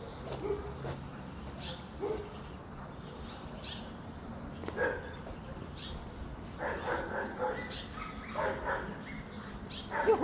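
A dog barking, with a run of barks from about two-thirds of the way in and a louder call at the very end, over short high chirps that come every second or two.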